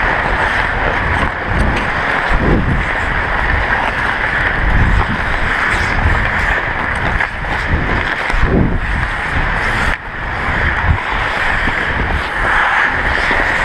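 Wind buffeting the microphone of a worn action camera as the skater moves at speed, with a steady hiss of skate blades on ice underneath.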